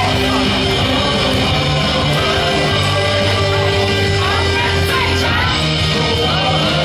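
Loud cheering music from the ballpark speakers, with voices singing and shouting along.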